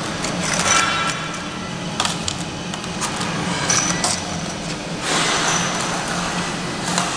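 Automatic flat labeling machine running with a steady low hum, with irregular clicks and light clatter and a louder hissing stretch about five seconds in.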